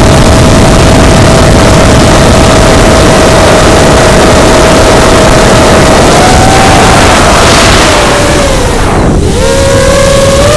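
FPV drone's motors and propellers whining under a heavy rush of wind on its onboard microphone. The whine holds one steady pitch, wavers after about six seconds, drops sharply near nine seconds as the throttle eases, then climbs back up.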